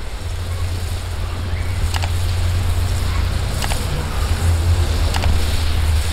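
Wind rumbling on the microphone, with three short sharp clicks about a second and a half apart.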